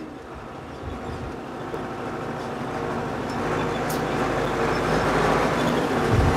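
Tractor engine running steadily and growing gradually louder as it draws nearer.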